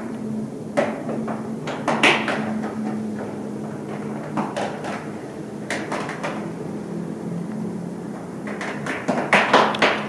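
Steady low hum of a building's ventilation system, with irregular knocks and clatters over it and a quick cluster of louder ones near the end.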